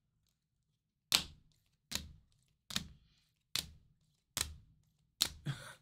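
Sleeved trading cards tapping against the stack as they are flipped through one at a time. About six sharp clacks come roughly one every 0.8 seconds, starting about a second in.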